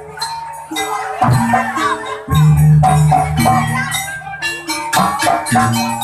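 Jaranan music on gamelan instruments: struck gongs and metallophones with drums and jingling percussion in a steady rhythm, with deep ringing gong-like tones struck about a second and two seconds in.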